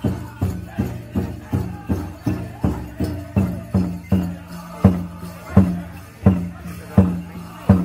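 Powwow drum and singers: a large drum struck in a steady beat about three times a second under held chanting. From about five seconds in, every second beat comes much harder.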